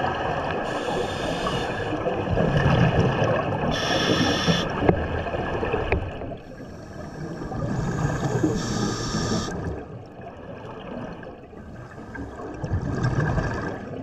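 Scuba diver breathing through a regulator underwater, about three breaths: each inhale is a hiss through the regulator, and each exhale is a low gurgling rush of bubbles.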